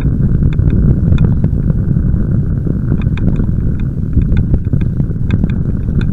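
Loud, steady low rumble of wind buffeting and tyre-on-tarmac vibration picked up by a camera on a moving bicycle, with irregular light clicks and rattles from the bike and mount over bumps.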